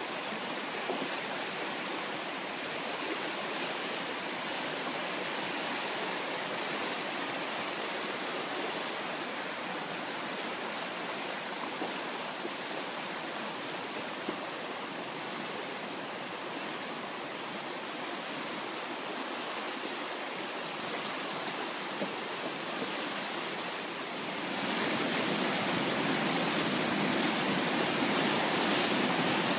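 Muddy flood water rushing and churning in a swollen river, a steady noise that grows louder near the end.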